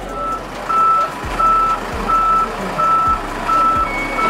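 Backup alarm of a Shantui backhoe loader beeping evenly, about three beeps every two seconds, over the machine's running engine.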